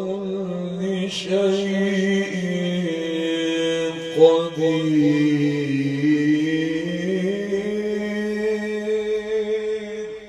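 A man's voice chanting Quran recitation in the melodic mujawwad style, holding one long ornamented note whose pitch sinks slowly and climbs back. Two short, sharp sounds break in, about one and about four seconds in.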